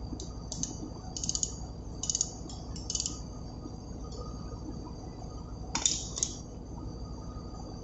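Light metallic clinks of a spanner against the bolts and piston top of a marine engine air starting valve as the bolts are turned in by hand. They come in several quick clusters over the first three seconds and as a louder pair about six seconds in, over a steady background hum.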